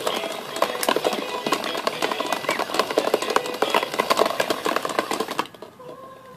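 Battery-powered dragon ball toy running: plastic balls clatter rapidly against its clear plastic dome as the motor tumbles them, over a few steady electronic notes. The rattling stops about five and a half seconds in.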